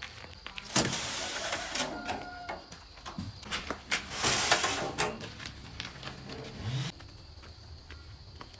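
Sand pouring from a tipped metal wheelbarrow onto a concrete floor, in two hissing rushes, about a second in and again, louder, around four seconds, with the wheelbarrow's metal rattling and clanking in between.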